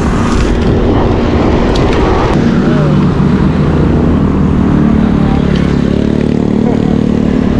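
Road traffic passing a bicycle on the road: a motor vehicle's engine hum comes in about two and a half seconds in and holds for several seconds over a steady low rumble.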